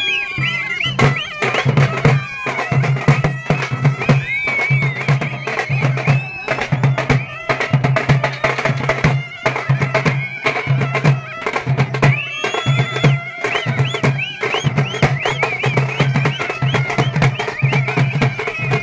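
Traditional folk music played loudly: dense drumming with a high, wavering melody over a steady drone.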